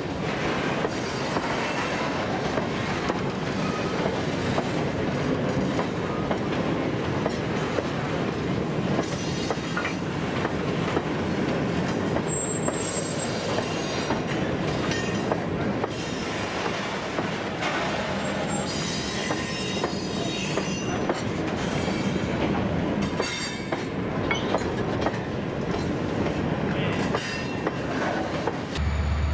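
Freight train wagons rolling past, with the steady rumble of steel wheels on rail, clickety-clack over the rail joints and brief high wheel squeals about midway.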